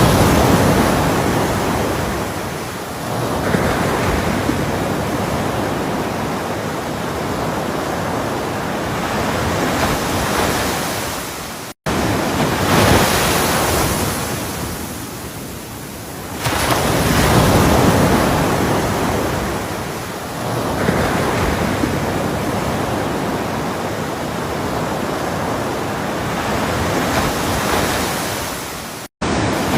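Ocean waves breaking on a shore: a steady wash of surf that swells every few seconds as each wave comes in and then fades. The sound cuts out for an instant twice, about twelve seconds in and near the end.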